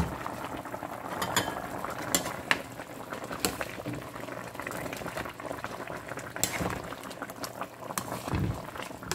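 Chicken tinola broth boiling in an open pot, bubbling steadily, with a metal ladle clinking sharply against the pot several times as it is stirred.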